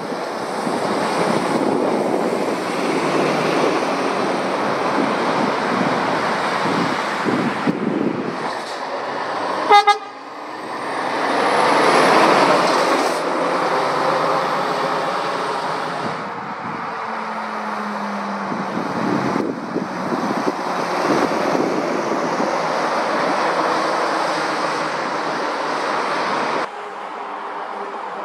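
Lorries passing one after another on a road, with engine and tyre noise, and one short, loud horn toot about ten seconds in.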